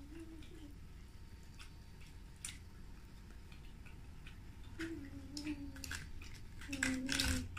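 Quiet eating sounds of people eating chicken wings by hand: scattered lip smacks and wet clicks from chewing and licking sauce off fingers, with a few short hummed sounds, busiest near the end.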